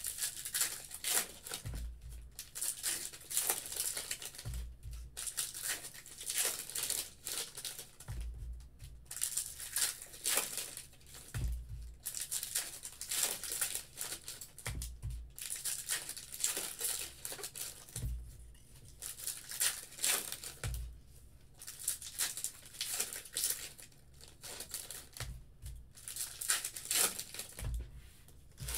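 Foil trading-card packs being torn open and crinkled by hand, in repeated short bursts, with a dull thump every few seconds.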